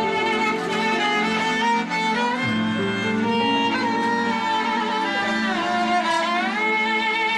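Bowed-string music, a violin carrying the melody in sustained notes with vibrato and pitch slides over lower strings. A low bass note comes in about two and a half seconds in.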